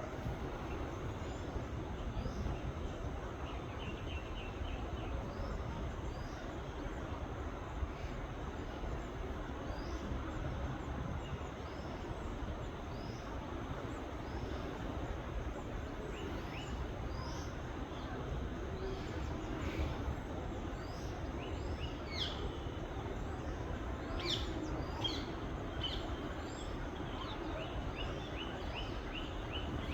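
Several birds chirping and calling over a steady low background noise, with a quick run of about five notes about four seconds in and the chirping growing busier near the end.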